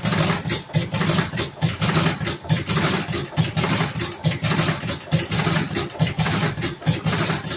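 Electric rotary-drum thick-cigarette filling machine running: its motor hums steadily and its mechanism clacks in a quick, even rhythm as it stuffs tobacco into empty tubes.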